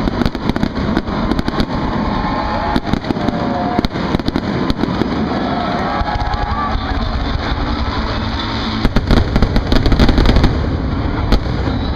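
Fireworks display going off: repeated sharp bangs and crackles over a low rumble, with a dense rapid cluster of bangs about nine seconds in.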